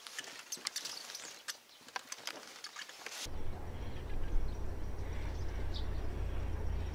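Bicycle wheels and footsteps on a rickety wooden plank footbridge, with scattered light clicks and knocks from the boards. About three seconds in, this cuts off abruptly and a louder steady low rumble takes over.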